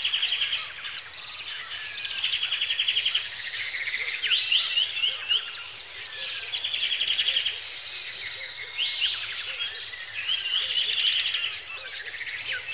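Several songbirds singing at once, their songs overlapping without a break: rapid buzzy trills and short repeated chirps and sweeping whistles.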